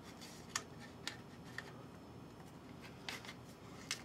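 Paper shims being worked by hand in behind a bandsaw's ceramic guide block: faint paper rustling with about five light, sharp clicks of the guide parts being handled.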